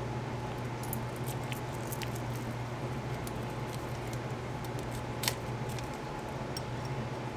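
Light, scattered clicks and taps of small metal engine parts being handled while pistons are fitted, with one sharper click about five seconds in, over a steady low hum.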